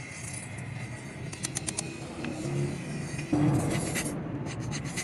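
Light clicks and knocks of wooden handle scales and a steel knife blank being handled and fitted together, over steady background noise. A knock about three and a half seconds in, then a quick run of small clicks.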